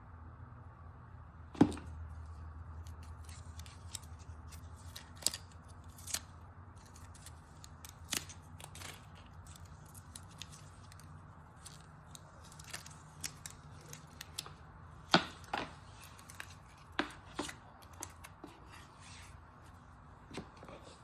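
Handling noise from unboxing a tablet: scattered sharp clicks and taps of cardboard packaging and the device being handled, the loudest about a second and a half in and again near fifteen seconds, over a faint low hum.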